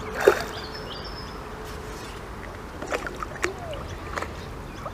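Hooked fish splashing at the surface close to the bank as it is played on the rod: several short splashes over a steady outdoor background.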